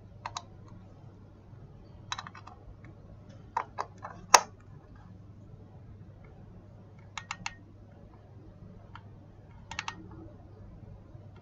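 Dental implant ratchet wrench clicking in short groups of two to four clicks every couple of seconds, as it is worked to drive the implant deeper into the jaw model; the loudest click comes a little over four seconds in.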